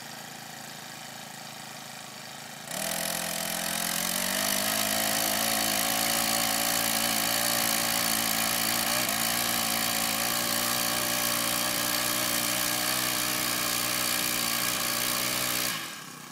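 Small gas-powered mini tiller engine running at idle, then throttled up sharply about three seconds in, its pitch climbing to a steady high-speed run while it tills, and dropping back to idle near the end.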